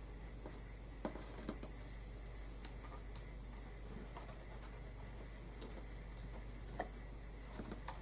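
Faint handling noise of hands working peacock feathers onto a felt top hat: a few small, scattered clicks and light rustles over a steady low hum.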